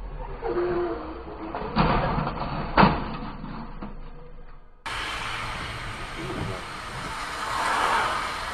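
Car interior noise with two loud bangs about a second apart, the second the louder. After a sudden cut comes a steady hiss of tyres on a wet road.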